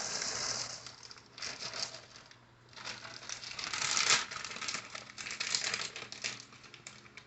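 Mixed vegetables being emptied from a bag into a pot: the bag crinkling and many small pieces pattering and clicking against the pot, in several uneven spells.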